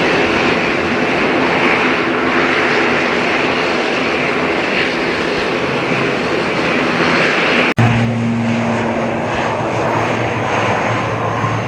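Airliner engines running with a loud, steady rush. It breaks off abruptly about eight seconds in at an edit, then carries on with a steady low hum under the rush.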